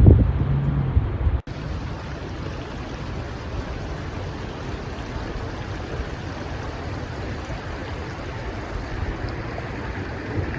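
Steady babbling of a small river flowing over its bed, an even rushing with no let-up. Before it, about the first second and a half holds a loud low rumble that cuts off abruptly.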